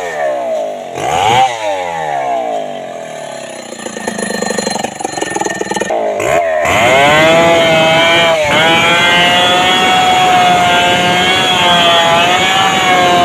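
Stihl 070 two-stroke chainsaw: it blips and its revs sink steadily for a few seconds, then it runs at full throttle, high and steady with slight wavers as it saws into a kapok trunk.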